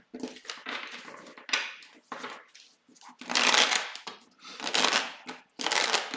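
A deck of Lenormand cards being shuffled by hand, the two halves pushed and riffled together in a series of short rustling bursts, loudest about three seconds in.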